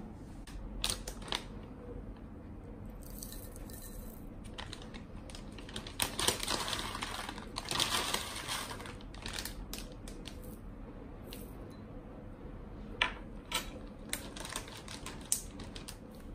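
Dry granola being poured into a ceramic bowl of yogurt: a dense rustling patter of clusters landing for about two seconds in the middle, then a scatter of sharper clicks near the end as a little more is sprinkled on.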